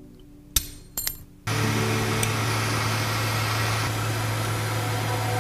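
A few light metallic clicks of steel tweezers on a phone board's metal shield parts, then about a second and a half in a hot-air rework station's blower switches on and runs steadily with a low hum.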